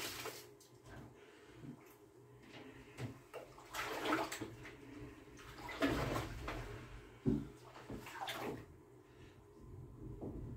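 Bathwater splashing and sloshing in a bathtub as a person splashes with his hands and shifts his body in the water: a string of irregular splashes, the loudest about four, six and seven seconds in.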